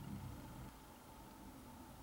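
Faint room tone: a low hiss with a faint steady hum, and a low rumble that fades out well under a second in.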